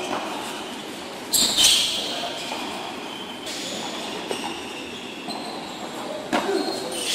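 Indistinct distant voices over a steady background noise, with a short hiss about a second and a half in.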